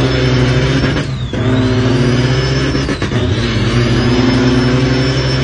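Semi-truck diesel engine pulling through the gears, heard from inside the cab, with a high jet-like whistle over the engine. The whistle falls away at each gear change, about a second in and again near three seconds, then climbs and holds as the engine pulls again.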